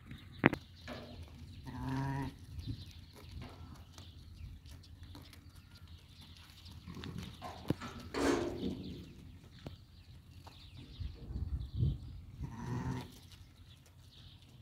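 Sheep bleating: three short, wavering calls spaced several seconds apart. A single sharp knock comes about half a second in.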